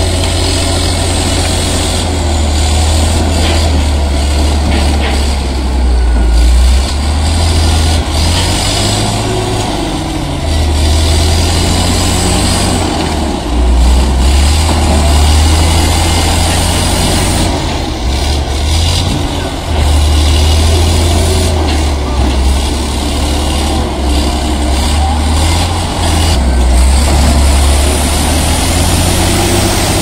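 Crawler bulldozer's diesel engine running hard under load as the machine pushes brush and branches with its blade, the deep engine sound swelling and easing every few seconds.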